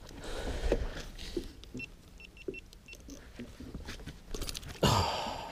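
A landed northern pike being handled in a boat's landing net: the net rustling, with light clinks and knocks from the lure and hooks. A quick run of faint high beeps about two seconds in, and a loud rustling burst near the end.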